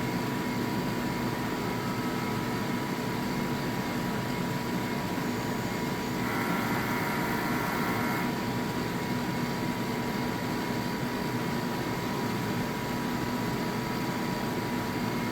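Refinecolor RF-CF60 DTF printer running its print-head cleaning cycle: a steady mechanical hum with a fixed whine, and a brighter higher whine joining in for about two seconds some six seconds in.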